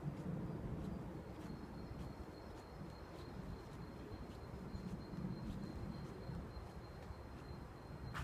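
Footsteps of a person walking at a steady pace, faint ticks about two a second, over a low fluctuating rumble of wind on the microphone. A thin, steady high whine runs underneath.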